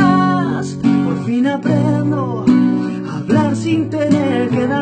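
Acoustic guitar strummed as accompaniment to a man singing. A long held sung note ends about half a second in, and more sung phrases follow over the strumming.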